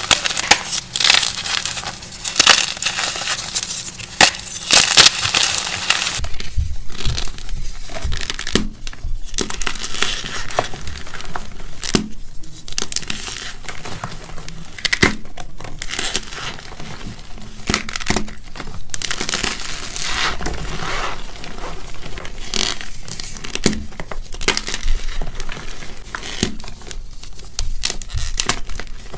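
Blocks of gym chalk dusted with cornstarch crushed and crumbled by hand: a close, continuous run of crunches and crumbles. The sound is crisp at first and turns duller and lower about six seconds in.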